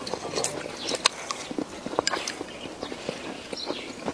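Close-miked chewing and mouth sounds as a man eats braised crispy pork and rice, with a run of short, irregular clicks and taps of chopsticks against a ceramic rice bowl.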